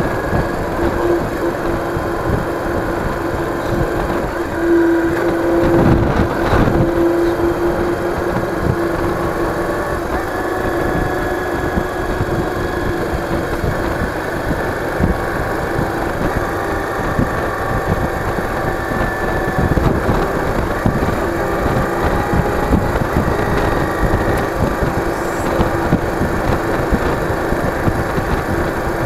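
Yamaha DragStar Classic's V-twin engine running at a steady cruising speed, heard with road and wind noise from the moving motorcycle.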